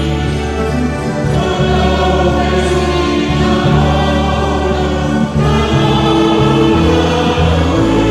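A Batak-language hymn sung by a group of voices, accompanied by a church band of electric keyboard, alto saxophone and electronic drum kit, with sustained chords and bass notes changing every second or so.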